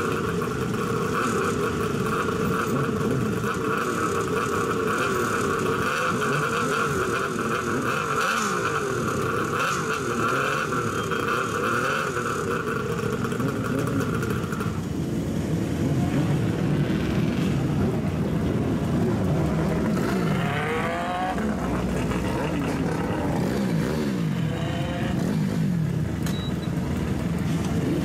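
Kawasaki 500SS Mach III's air-cooled two-stroke triple running on straight pipes: a steady run in the first half, then the revs rise and fall in several throttle blips in the second half.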